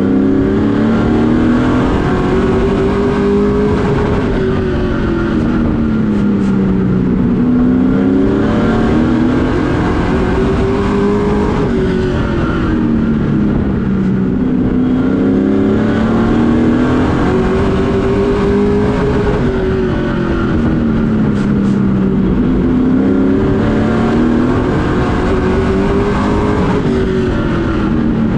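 Race truck's engine heard from inside the cockpit, lapping a short oval: the pitch climbs under throttle down each straight and drops as the driver lifts for each turn, about four times, roughly every seven and a half seconds.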